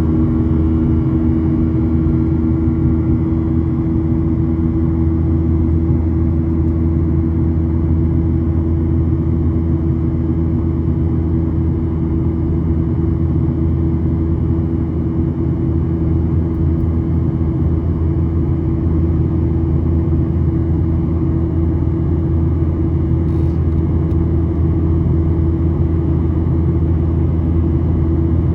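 Steady cabin drone of a Boeing 737's jet engines and airflow, a constant low rumble with a steady hum.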